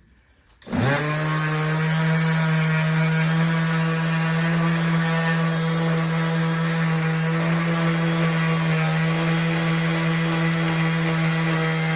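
A small electric power-tool motor spins up quickly about a second in and then runs at one steady speed with a steady hum.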